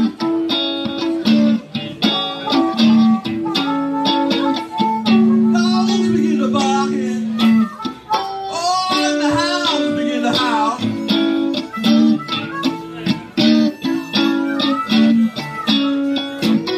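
Live blues played on electric guitar and harmonica, the harmonica cupped against a vocal microphone, with notes bending up and down in pitch in the middle.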